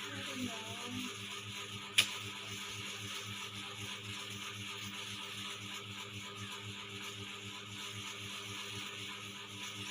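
A small motor running steadily, a hum with a regular low pulse about three to four beats a second over a steady hiss, with one sharp click about two seconds in.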